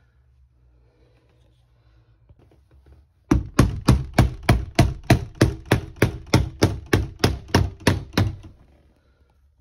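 Soft-faced mallet tapping a UPVC glazing bead back into the door frame, clipping the refitted panel in place. It is a quick, even run of about twenty knocks, about four a second, starting about three seconds in and stopping near the end.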